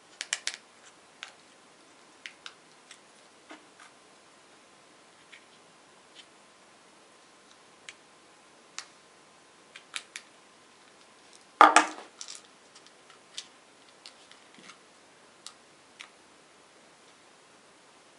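Small kit parts and wires handled by hand over a tabletop: scattered light clicks and ticks, with one louder clatter about twelve seconds in.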